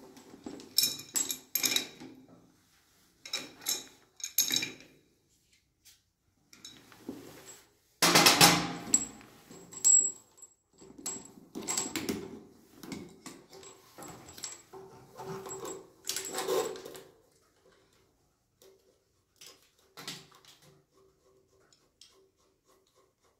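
Metal clinks and rattles of an adjustable spanner on a chrome angle valve and of a braided steel flexible hose and its fittings being handled, in irregular bursts. A loud clatter comes about eight seconds in, and the handling goes quiet for the last few seconds.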